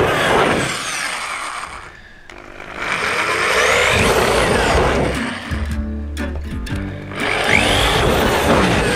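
Electric drill boring pilot holes through a caravan roof in three bursts, its motor whine rising and falling as it spins up and slows. Background music with steady held tones comes in about halfway through.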